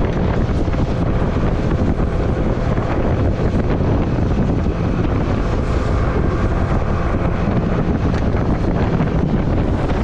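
Small fishing boat under way at speed through choppy sea: wind buffets the microphone over a steady rush of water and the hum of the boat's engine.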